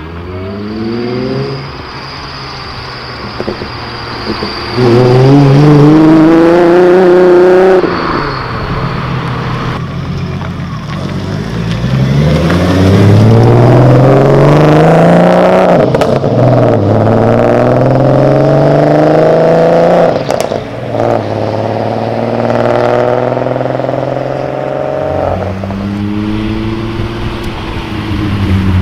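Volkswagen VR6 six-cylinder engines accelerating hard past, one car after another. The note climbs through the revs and drops back at each gear change, five or six rising pulls in all.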